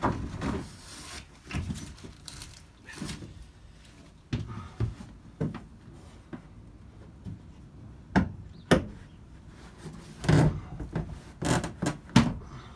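Mercedes Sprinter's moulded cab headliner panel being handled and worked loose from the roof: irregular knocks, clicks and rattles of the trim, with two sharp clicks about eight seconds in and a run of knocks a couple of seconds later.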